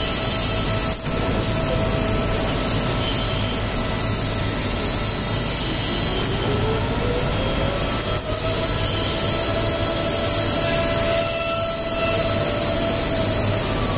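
A dual-spindle CNC PCB drilling and routing machine runs on metal-core PCB panels, with a steady spindle whine over a constant extraction hiss. A tone rises over about two seconds, starting some six seconds in, then holds. There is a sharp click about a second in.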